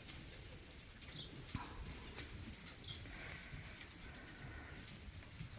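Faint sheep-pen sounds: ewes shuffling and rustling in the bedding, with a light knock and a couple of short, high, falling chirps.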